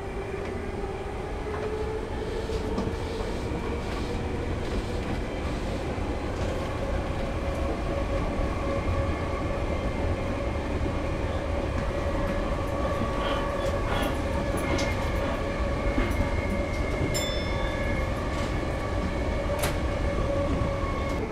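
Tokyu Den-en-toshi Line electric commuter train heard from inside the car while running: a motor whine rising in pitch over the first few seconds as it picks up speed, then holding steady over the low rumble of the wheels on the rails, with a few scattered clicks.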